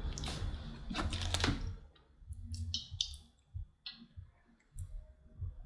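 Biting into a piece of jerk chicken close to the microphone: soft, scattered mouth clicks and smacks, a few short ones in the second half.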